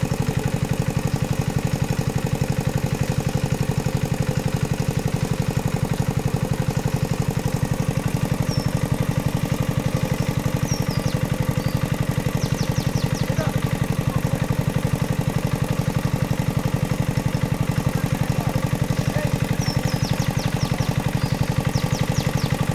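Small engine-driven water pump running steadily with an even, fast beat while it pumps water out of the pond through a hose.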